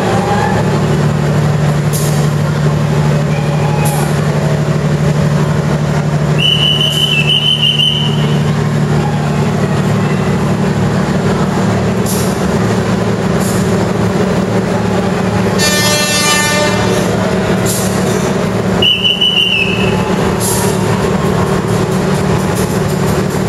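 Steady low drone of a train's diesel engine running at a station platform. Twice a short, high whistle sounds, and just past the middle there is a brief horn-like blast.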